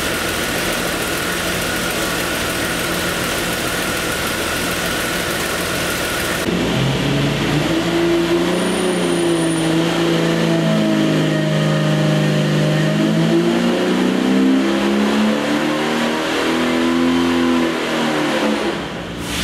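Jeep 4.6-litre straight-six stroker engine running on an engine dyno. About six seconds in, the sound turns louder, and the engine note rises and falls in pitch over the following seconds before easing off near the end.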